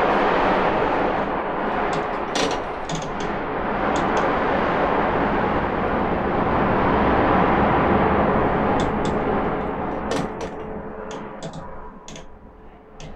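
Loud, steady roar of steel-plant meltshop noise, broken by many sharp cracks and bangs in clusters a few seconds in and again near the end, while the roar fades.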